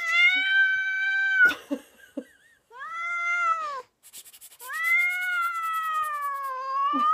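Cat yowling: three long, loud, drawn-out cries. The first holds one pitch for about a second and a half, the second is shorter, and the third is the longest, sagging in pitch and then rising again. A short rasping noise comes just before the third cry.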